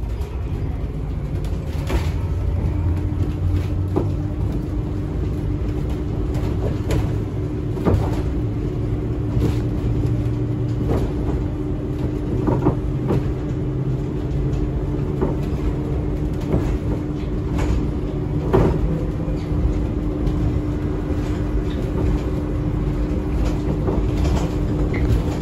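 Cabin noise of a rubber-tyred electric tram under way: a steady low rumble with an even electric hum that comes in about three seconds in, and scattered short knocks and rattles.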